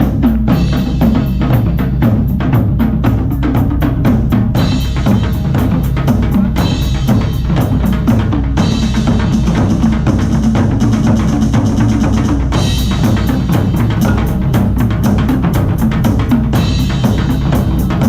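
Amplified music carried by a steady drum-kit beat, with bass drum and snare. Cymbals come in and drop out in phrases every few seconds.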